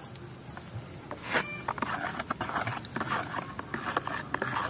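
A hand stirring calcium fertiliser powder into water in a plastic bucket, the liquid sloshing and splashing in quick irregular bursts that start about two seconds in.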